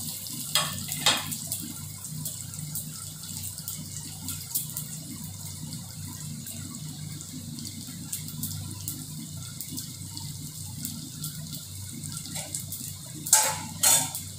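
Crushed garlic and mustard seeds sizzling in hot sesame oil: a steady hiss with fine crackling, over a low steady hum, with a few louder sharp cracks about a second in and again near the end.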